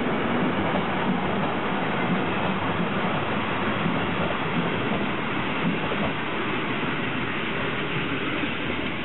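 Steam-hauled train of old passenger coaches rolling past on the rails and drawing away. The noise is steady at first and slowly eases off after about six seconds.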